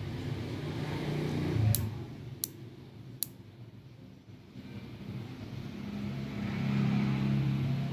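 CRKT M16-10KZ folding knife's mechanism clicking as it is worked by hand: three sharp clicks, a little under a second apart. Underneath is a low engine hum from a vehicle, which swells near the end.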